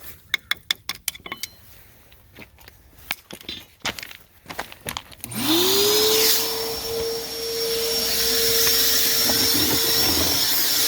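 A run of sharp clicks and knocks, then about five seconds in a motor spins up quickly and runs steadily at one pitch with a loud hiss.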